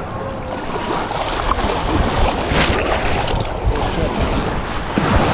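Shallow surf washing around rocks, with wind buffeting the microphone, and a brief splash about halfway through.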